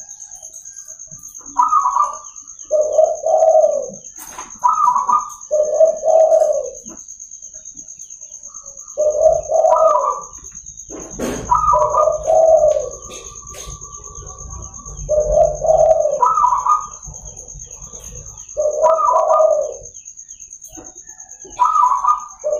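Zebra dove (perkutut) singing its cooing song over and over, each phrase a short higher note followed by lower rolling coos, about seven phrases in all. A steady high-pitched whine runs underneath.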